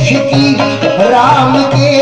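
Live qawwali music: a male lead singer's voice gliding between notes over a sustained harmonium, with tabla strokes keeping a steady rhythm.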